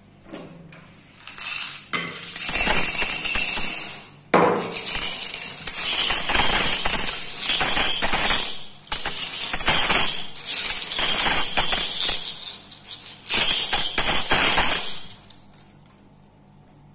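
Glass marbles clattering and clinking against each other and a glass bowl as they are put in and moved around. The rattling runs in stretches of several seconds with brief gaps and stops near the end.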